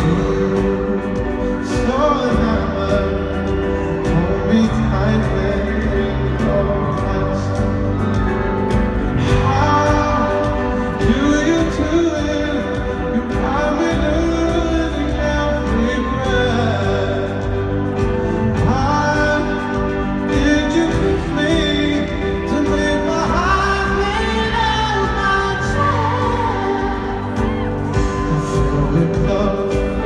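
Male pop singer singing live into a handheld microphone with a full backing band, amplified through an arena PA and heard from among the audience, with hall echo. The melody moves in long, gliding sung lines over sustained low chords.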